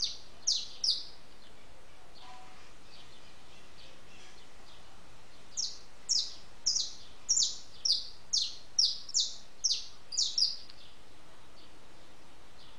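A small bird's sharp chirps, each a quick falling note: a few in the first second, then a run of about a dozen from about six to ten and a half seconds in, over a steady background hiss.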